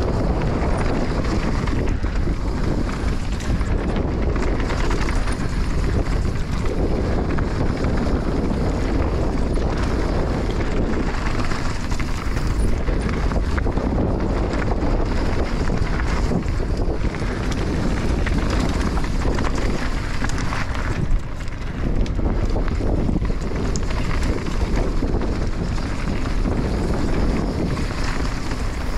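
Enduro motorcycle riding a trail, its low engine rumble mostly buried under steady wind noise on the microphone.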